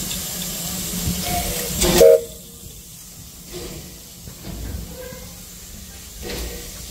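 Steam hissing from a 1950 Beyer-Peacock NG/G16 Garratt steam locomotive standing under steam. The hiss swells to its loudest about two seconds in and cuts off suddenly, leaving a quieter low rumble from the engine.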